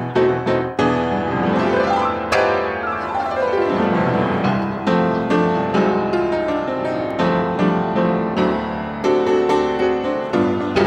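Solo piano accompaniment to a silent comedy: short repeated chords at about four a second, then a sharp accent and a falling run about two seconds in, going on into a bouncy melody.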